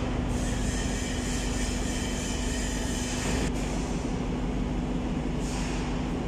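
Ship's engine-room machinery noise: a steady rumble and hiss with a constant low hum.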